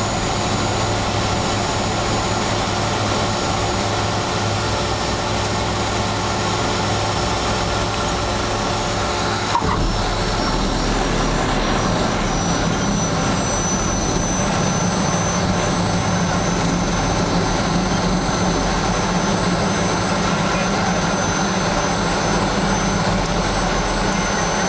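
Turboprop engine and propeller of an Aerocomp 7 homebuilt aircraft running steadily during landing, a high turbine whine over a propeller hum. About ten seconds in there is a short knock, and after it the engine note changes, with a deeper hum.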